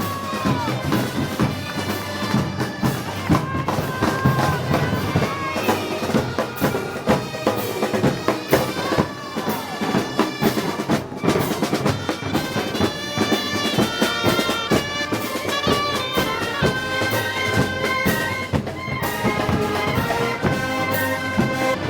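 Live festival band music from a Moros y Cristianos celebration: loud wind instruments play over a steady beat of drums.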